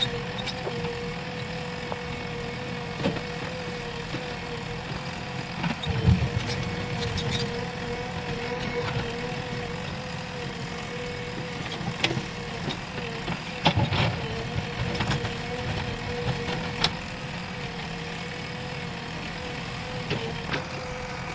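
Diesel engine of a JCB earthmoving machine running steadily under work, with a steady tone over the engine note. Scattered knocks and clanks break in, the loudest about six seconds in.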